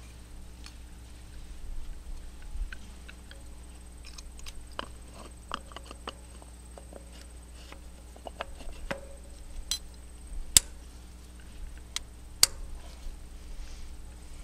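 Distributor cap with its spark plug wires being handled and fitted back onto the distributor of a Farmall 100 engine: scattered light plastic clicks and wire rattles, with two sharp clicks in the second half as the cap goes on.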